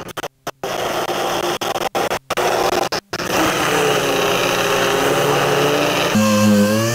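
Pneumatic die grinder with a small abrasive disc working bare sheet metal, in short bursts with sudden stops during the first three seconds, then running steadily. Near the end a louder machine sound with a wavering pitch takes over.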